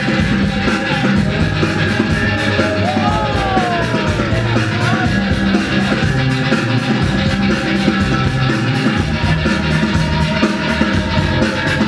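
Loud music with a steady, quick beat, with a voice sliding in pitch over it for a couple of seconds partway through.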